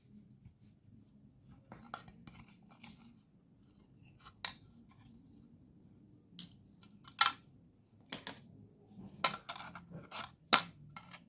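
Small clicks, taps and short scrapes from hands and tools working on a Samsung Galaxy A03s smartphone's plastic housing and parts. A few sharper clicks come in the second half.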